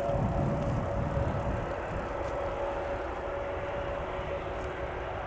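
Airbus A321neo's jet engines at taxi power: a steady rushing noise with a constant whine held at one pitch.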